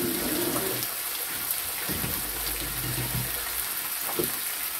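Pork belly slices sizzling on a grill pan, a steady hiss of frying fat.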